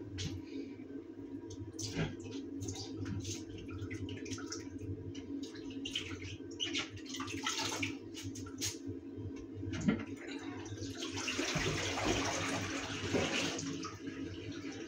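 A small black bin being washed in a bathroom sink: water splashing with scattered light knocks and clicks against the basin, then water runs into the sink for about three seconds starting around eleven seconds in.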